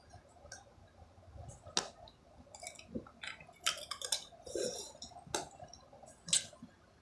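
Hands fiddling with something small close to the microphone: irregular sharp clicks and taps with a few short scratchy rustles, the loudest clicks in the second half.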